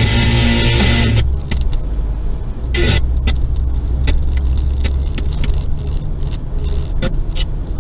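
Car driving on a street, heard from inside the cabin: a steady low rumble of engine and tyres, with light clicks and rattles scattered through it. Music fades out about a second in.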